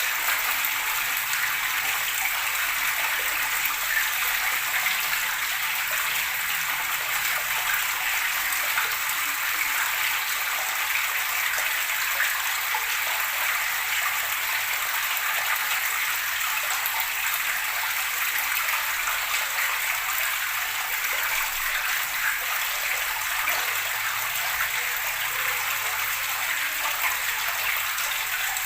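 Flowing water gurgling and splashing in a steady, unbroken rush.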